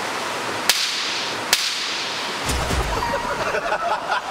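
Two sharp, gunshot-like cracks of blows landing on a man's backside, a little under a second apart. Voices follow near the end.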